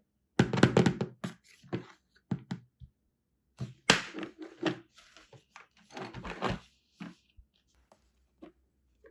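Small plastic toys being handled and set down: an irregular run of knocks, clicks and rustles, loudest about half a second in and again near the middle.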